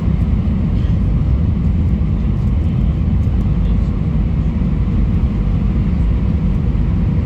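Steady low rumble inside a jet airliner's cabin on low approach: engines and airflow over the extended wing flaps, with a faint steady hum above it.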